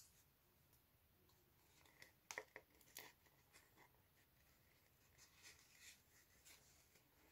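Near silence with faint handling noise: a few soft clicks and light rustling of fabric and thread being shifted by hand, the clicks about two to three seconds in and a quieter rustle later.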